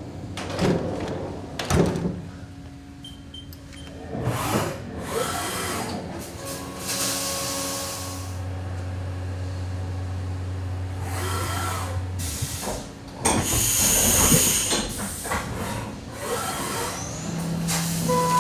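A Haas CNC vertical mill's sliding enclosure door rolls shut with a few clunks, then the mill runs a cutting job. Steady machine tones step up and down in pitch, coolant sprays inside the enclosure, and a loud hiss comes about two-thirds of the way through.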